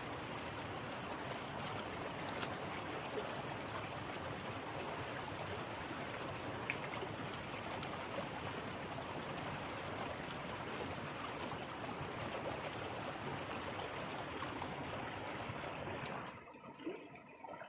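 Steady rush of flowing stream water, which cuts off abruptly near the end.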